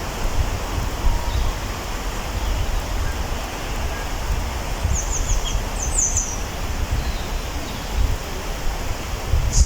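Wind rushing and buffeting the microphone in woodland, with a bird giving a quick run of high chirps about five seconds in.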